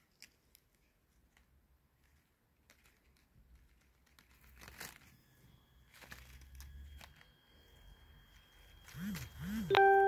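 Faint, scattered rustling and crinkling. Near the end come two short low swoops, then a loud, steady pitched tone with ringing overtones, like the first note of an electronic sound effect or music.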